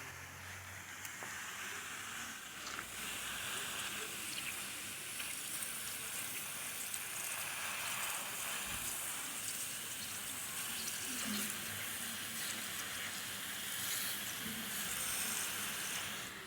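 Steady hiss of rushing water, such as water running or spraying from a pipe.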